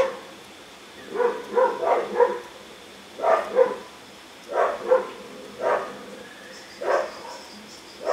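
A dog barking repeatedly, in short barks that come singly or in pairs about once a second.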